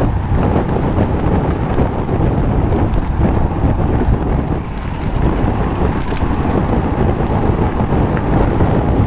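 Loud wind rush buffeting a helmet-mounted camera's microphone as a mountain bike descends a gravel track at speed, with a steady low rumble of tyres on gravel underneath.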